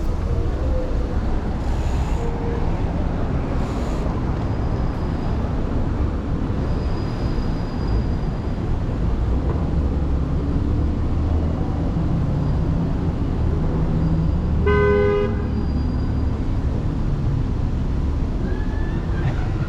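Wind buffeting the microphone and street traffic rumbling steadily during a bicycle ride, with one brief vehicle horn honk about fifteen seconds in.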